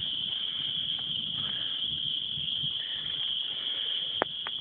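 A steady, high-pitched chorus of crickets, with two short clicks near the end.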